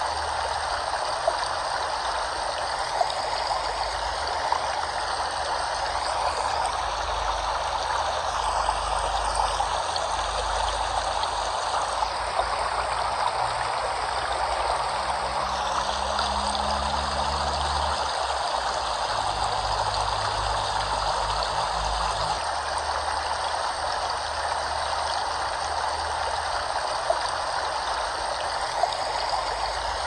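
Flowing water running steadily: an even, continuous rush of a stream or cascade, with a few faint ticks.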